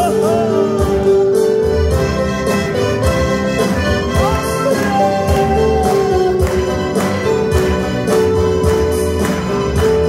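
Church choir singing a medley of worship choruses with band accompaniment: the sung melody over a steady bass line and a regular drum beat, about two beats a second.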